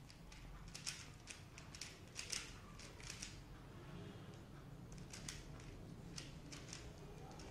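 Dayan ZhanChi 3x3 speed cube being turned fast in a solve: an irregular string of quick plastic clicks and clacks in flurries as the layers snap round, over a low background rumble.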